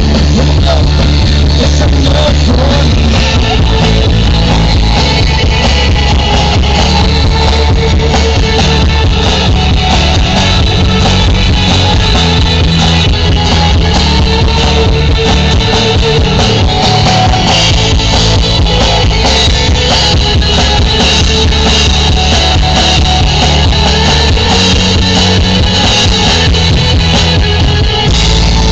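Live band playing loud rock music: electric and acoustic guitars over a drum kit, amplified through a PA.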